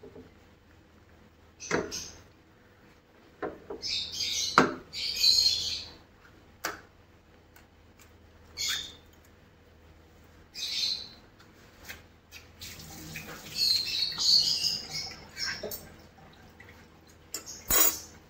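Birds chirping in short, scattered bursts, with a few sharp clicks in between.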